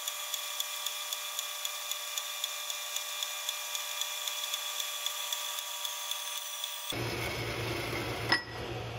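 Horizontal metal-cutting band saw cutting through a bar of 316 stainless steel: a steady whine of several fixed tones with a light tick about twice a second. About seven seconds in it gives way to a low hum, with one sharp knock near the end.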